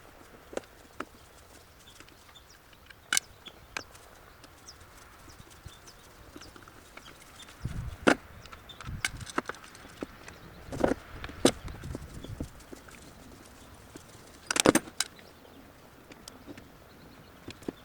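Irregular clicks and knocks of hand tools and chainsaw parts being handled during repair work, with the loudest knocks about halfway through and near the end.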